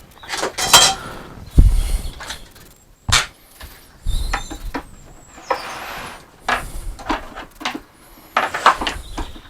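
Wooden drawer parts being handled and fitted: a string of knocks and wooden scrapes, with a few short high squeaks.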